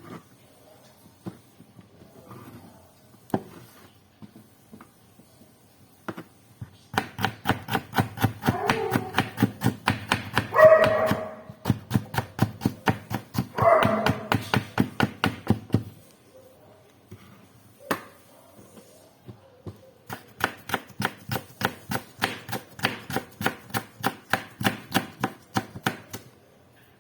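Knife chopping on a cutting board in quick, even strokes, about four a second, in two long runs. A dog barks twice during the first run.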